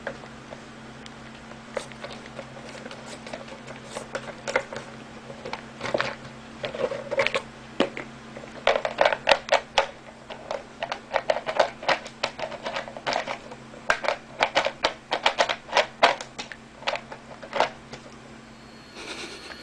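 Plastic twist-dispenser cap on a large jar of cat kibble clicking and rattling as a cat paws and turns it. The clicks come in irregular runs, sparse at first and quickest and loudest in the middle and later part.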